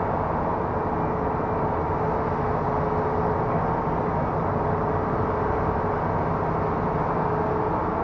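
Heavy construction machinery engine running steadily at a constant pitch while a waterline trench is being filled in.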